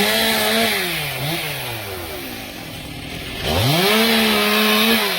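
Chainsaw revved twice: the engine climbs quickly to high speed, holds briefly, then winds back down toward idle. The second rev starts about three and a half seconds in.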